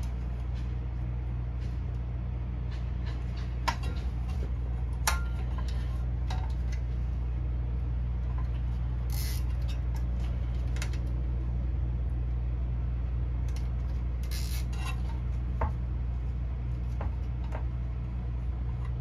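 Tie straps being pulled tight around bundles of fiber in a splice tray: two short zipping bursts about halfway and three-quarters through, among small clicks and taps of the tray and fibers being handled, over a steady low hum.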